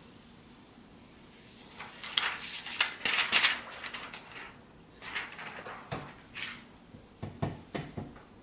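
Rustling and crackling of thin plastic protective film being peeled off a new laptop screen panel, starting about two seconds in, then several light clicks and knocks of plastic laptop parts being handled.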